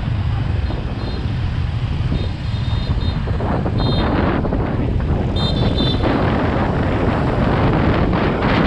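Wind buffeting the microphone over steady road and engine rumble from a vehicle on the move, louder in the second half. A few short high tones break through along the way.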